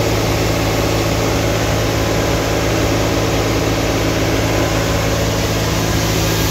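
Tractor engine and grain auger running steadily while soybeans pour out of a gravity wagon's chute into the auger hopper, a continuous machine drone under a dense hiss of flowing grain.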